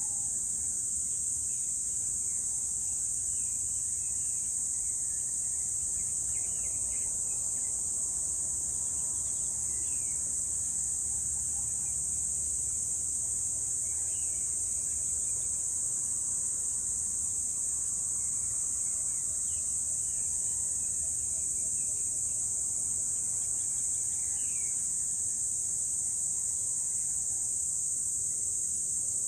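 A steady, high-pitched drone of an insect chorus, with faint short bird chirps every few seconds over a low background rumble.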